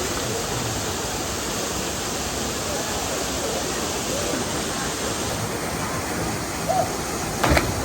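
Waterfall's steady rushing water, with faint voices now and then and a short knock near the end.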